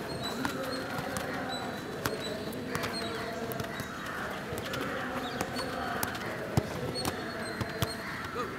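Footballs being kicked on a dirt training pitch: a series of short, sharp thuds, the loudest about two thirds of the way in, over distant children's voices and birds calling.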